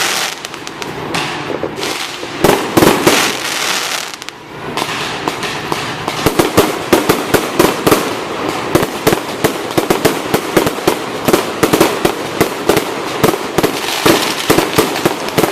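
Fireworks display: a few loud bangs in the first seconds, then dense, rapid crackling and popping of many shells bursting from about six seconds in.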